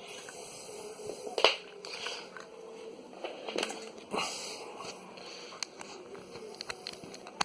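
Handling noise from swapping a DC power adapter: rustling of cables with several scattered clicks and knocks of plugs being pulled and pushed in.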